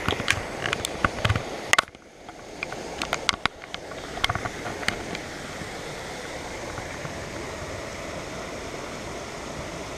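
Steady rush of water pouring over a low concrete dam spillway, with a run of sharp clicks and knocks in the first five seconds.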